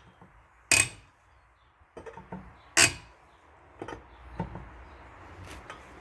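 Sharp metallic clinks of a breaker bar's socket being set onto and worked around the lug nuts while they are tightened by hand, several separate knocks a second or two apart, two of them loudest.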